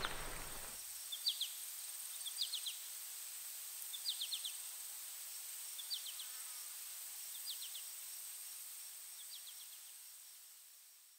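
Quiet outdoor nature ambience: short groups of three or four quick high chirps repeat about every second and a half over a soft steady hiss. It fades out near the end.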